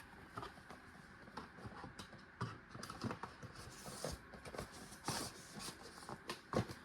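Faint, irregular small clicks, taps and rustles of a hand ratchet and its packaging being handled.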